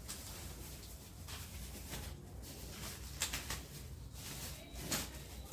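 Packaging being handled during unboxing: irregular rustling and crinkling, with the sharpest crackles about three seconds in and again near five seconds.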